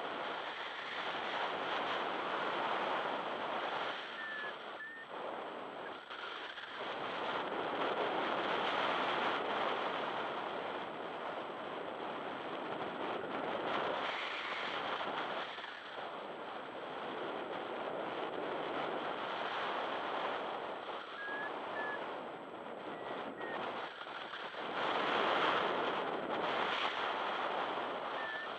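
Wind rushing over the microphone of a camera in paragliding flight, a steady rush that swells and eases every few seconds.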